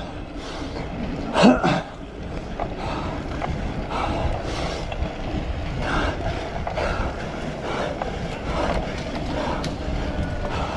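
Cyclocross bike ridden over rough ground: a steady low rumble of tyres and air with scattered rattles and clunks, and one short louder sound about a second and a half in.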